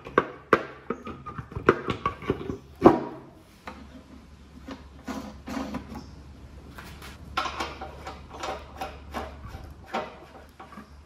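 Metal knocks and clicks as a polished metal side cover is set against a reel mower's drive housing, the loudest knock about three seconds in, followed by softer scattered clicks as its bolts are turned in by hand. A low steady hum starts about four seconds in.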